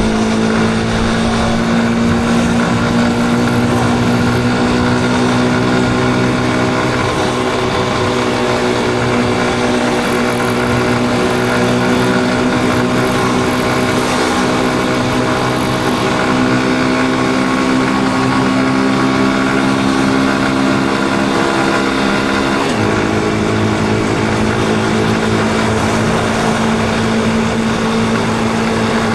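Yamaha Crosser 150's single-cylinder four-stroke engine running at a steady riding speed. Its note drifts slightly, then shifts abruptly about three quarters of the way through, as on a gear change or throttle change.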